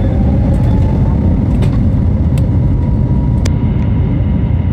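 Cabin sound of an Airbus A321neo's Pratt & Whitney geared turbofan engines spooling up for takeoff: a whine rises in pitch and then holds steady over a loud, steady rumble as the aircraft rolls. A few light clicks of cabin rattle come through in the middle.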